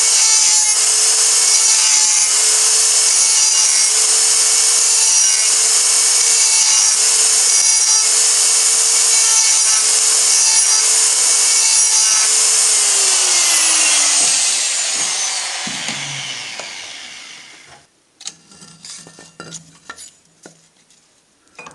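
Makita GD0600 die grinder running with a steady high whine as its bit grinds into the cast aluminium starter motor end case. About 13 seconds in it is switched off and winds down, the whine falling in pitch and fading over several seconds. Then come a few light clicks and knocks.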